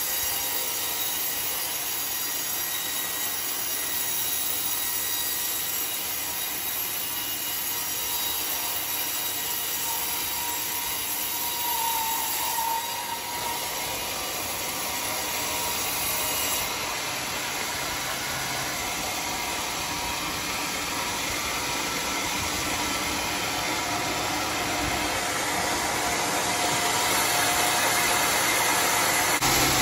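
Homemade band sawmill running, its blade cutting lengthwise through a large teak log with a steady high hiss; a deeper machine sound comes up near the end.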